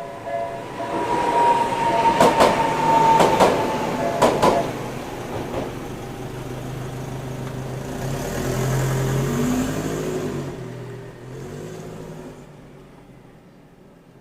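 Tokyu Setagaya Line 300-series two-car tram passing over a level crossing. Its wheels clack in pairs over the rail joints about two to four seconds in, under a high steady squeal. A rising motor hum follows as it moves off, fading out near the end.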